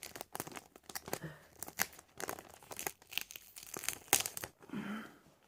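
Thermocol (expanded polystyrene foam) being pulled and torn off a toy ornithopter's body by hand: irregular crackling and crinkling.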